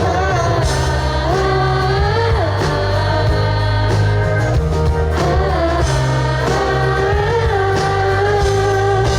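Live band playing a pop-rock ballad with long held sung notes that glide between pitches, over a steady bass line.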